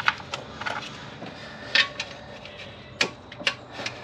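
Irregular clicks and knocks of parts and hand tools being handled in a car's engine bay, about eight over four seconds, the loudest a little under two seconds in.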